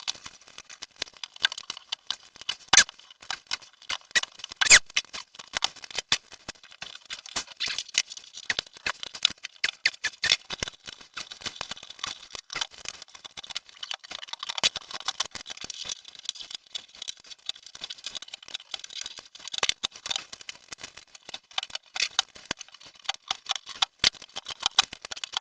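Factory foil-faced sound-deadening mat being torn and peeled off the sheet-metal spare-wheel well: dense, irregular crackling and crinkling of foil with sharp snaps and scrapes, the loudest about three and five seconds in. The hard mastic is firmly stuck and very difficult to remove.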